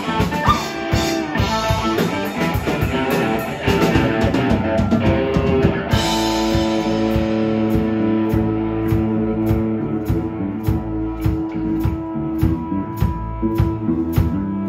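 Live rock band playing: electric guitars over a drum kit. About six seconds in, the guitars settle into a held chord over a steady drum beat.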